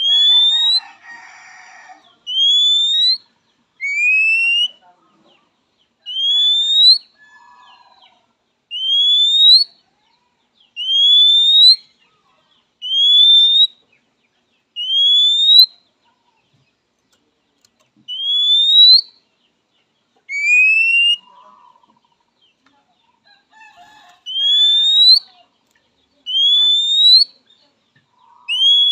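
Male oriental magpie-robin giving its typical calling whistle to a rival: a loud, clean note that slides upward, repeated about every two seconds, with a few notes pitched lower and two longer pauses midway.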